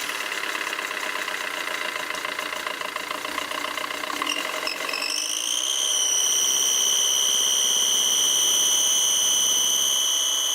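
Fiat Doblo diesel engine idling with a buzzing whine. About five seconds in, a loud high whistle rises and then holds steady. This is the engine whistle that sounds like an alternator belt, later traced to a burnt-through exhaust manifold gasket.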